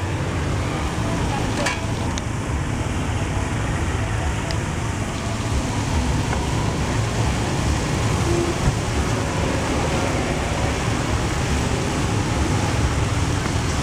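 A wok of stir-fried water spinach and meat cooking over a high gas flame: a steady rush and sizzle. One light clink about two seconds in.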